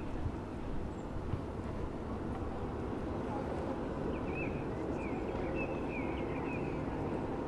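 Busy city-square ambience: a steady hum of traffic with people talking in the distance. Small birds chirp a few times about halfway through.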